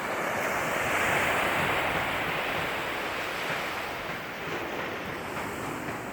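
Ocean surf: a wave breaking and washing up the beach, swelling about a second in and then slowly falling away, with some wind on the microphone.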